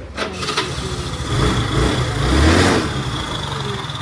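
Kymco JR100 scooter engine revved briefly, its pitch rising and falling, then dropping back to an even, pulsing idle. A sharp click comes just before the rev.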